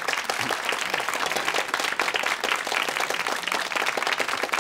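Studio audience applauding: many hands clapping together in a dense, steady patter.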